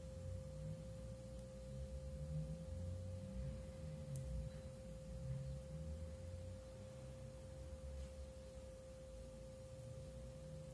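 A faint, steady hum at one unchanging pitch, over a low, uneven rumble.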